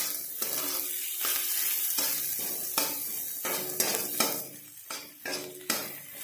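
Spatula scraping and stirring onions and spice masala sizzling in oil in a nonstick kadai, while the masala is fried (bhuna). The strokes come roughly twice a second over a steady sizzle, which thins out after about four seconds.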